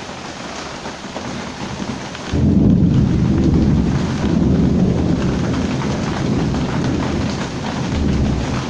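Heavy rain falling steadily; about two seconds in, thunder breaks in with a loud rumble that rolls on, swelling again a couple of times.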